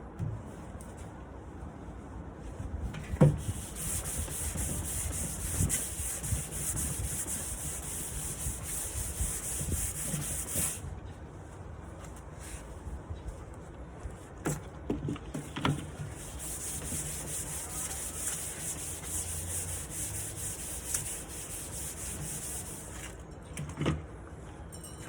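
Sanding the top of a wooden nightstand: a steady abrasive hiss that runs for about ten seconds, pauses, then runs again for several seconds more before stopping near the end. A few sharp knocks are heard along the way.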